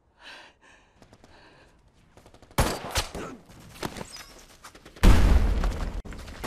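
Film battle sound: a volley of gunshots breaks out about two and a half seconds in, followed about five seconds in by a loud explosion with a deep rumble.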